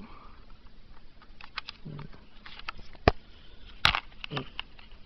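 Scattered small clicks and taps from handling an Asus Eee PC netbook and its RAM module, with two sharper clicks a little past halfway.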